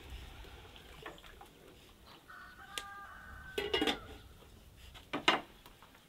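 Domestic chickens calling: a drawn-out, crow-like call of a few steady notes about two seconds in, then two short, louder calls near four and five seconds.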